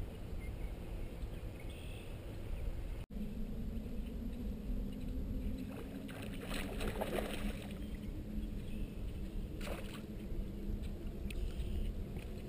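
Wind and water lapping against a bass boat, a steady low rumble, with bursts of splashing about six to eight seconds in and once more near ten seconds as a hooked bass is fought to the boat.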